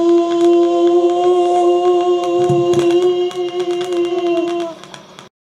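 A steady droning tone with a stack of overtones, slightly wavering in pitch, with fine crackling clicks running through it. It is a strange sound effect made by picking up a wireless microphone on a software-defined radio. It fades near the end and then cuts off suddenly.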